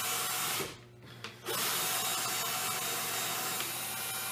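Cordless drill driving screws into wooden boards. The motor runs steadily, stops for a moment just under a second in, then starts again and runs on.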